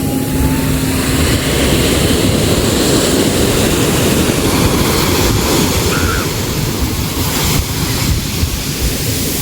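Sea waves washing in and breaking, a steady loud rush of surf.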